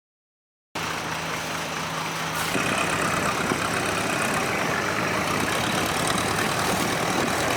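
Boat engine running steadily after a brief silence, with a low steady hum at first; about two and a half seconds in, a louder rushing noise takes over and holds.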